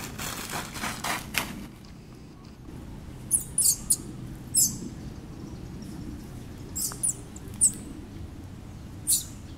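Infant macaque giving short high-pitched squeaks, about eight of them spread over several seconds, some sliding down in pitch. A rustling noise comes first, in the opening second or so.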